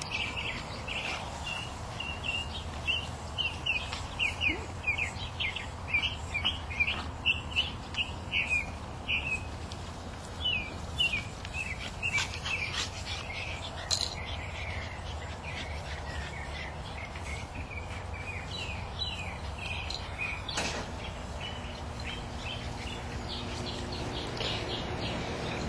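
Small birds chirping: runs of short, high, down-slurred notes, about two or three a second, that stop and start again several times, over a low steady rumble.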